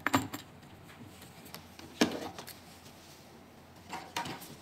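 A few sharp handling knocks and clicks as a handle's cable plug is pushed into a round multi-pin socket on the back of a metal-cased machine; the loudest knock comes about two seconds in, with a short cluster of clicks near the end.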